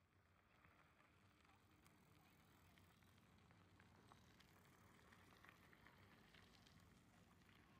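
Near silence: faint background noise with a weak low hum and a few soft ticks.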